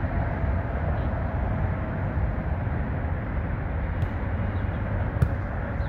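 Steady low rumble of traffic on the elevated roadway overhead, with two sharp smacks near the end as the volleyball is hit.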